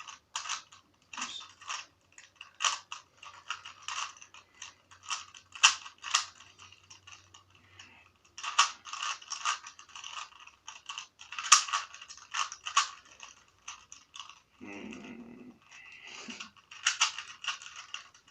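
Plastic Rubik's cube, its core screw loosened to turn faster, being twisted rapidly by hand: its layers clack in irregular quick flurries with short pauses between.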